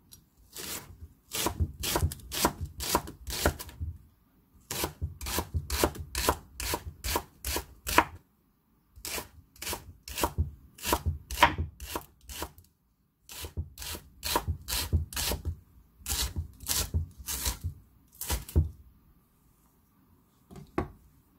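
Chef's knife slicing the white part of a Korean leek into rounds against a wooden cutting board: sharp, steady knocks about three a second, in several runs with short pauses between. The knocks stop about two seconds before the end.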